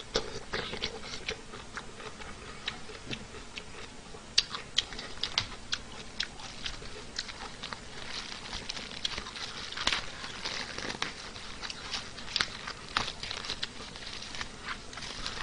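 A person eating with his mouth open: wet chewing and lip-smacking, an irregular run of short sharp clicks and crackles, thicker in places.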